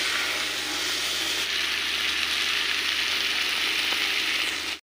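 Hilsa fish with onion and tomato sizzling steadily in hot oil in a kadai as it fries down into a bhuna; cuts off suddenly near the end.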